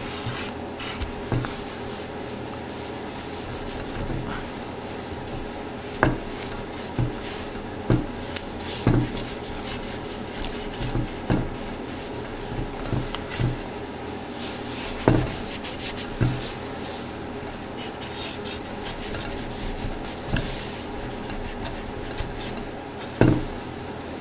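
Rubbing and scrubbing on the car amplifier's metal heatsink as old thermal compound is wiped off, with scattered sharp knocks and clacks.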